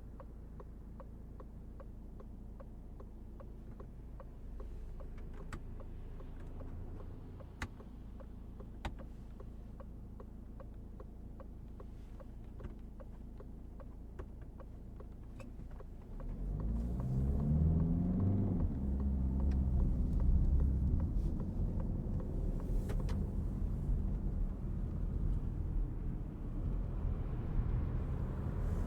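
1.5-litre diesel engine of a Citroen C5 Aircross with automatic gearbox, running with a low steady hum and faint scattered ticks. About 16 seconds in it grows louder and its note climbs in pitch as the car pulls away and accelerates.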